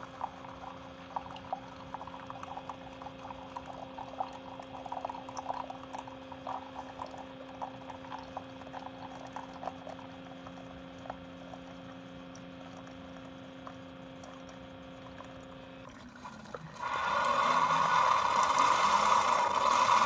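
Keurig K-Elite coffee maker brewing: a steady low pump hum with light splashing as coffee streams into a glass mug. The hum stops about three-quarters of the way through, and a louder, steady rushing hiss from the machine takes over near the end.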